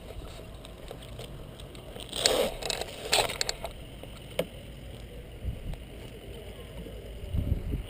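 Rustling and clattering of gear being handled, with the camera itself jostled, loudest from about two to three and a half seconds in, followed by a single sharp click and a few dull low thumps.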